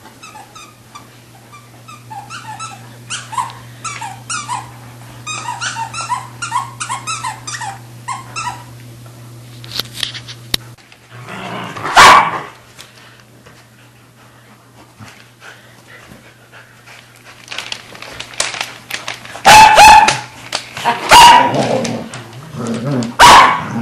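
Dogs at play: a run of many short, high-pitched yips in the first nine seconds, then loud barks, once about halfway and several times near the end.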